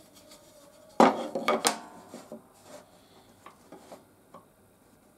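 A wooden strip set down on a table saw's table: a sudden clatter of several knocks about a second in, then a few light taps and scrapes as the piece is slid into place against the miter gauge.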